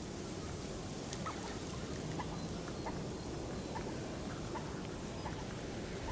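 Mute swan feeding with its head under water. There are short faint sounds about every half second over a steady low rumble.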